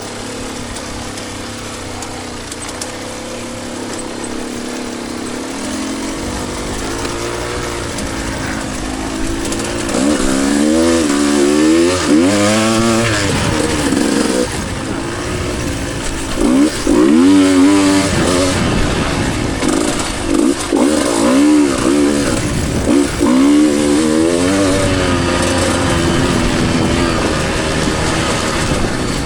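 Two-stroke dirt bike engine being ridden on a trail, revving up and down again and again as the throttle is worked, the pitch rising and falling. It gets louder about a third of the way in, with quick blips of throttle.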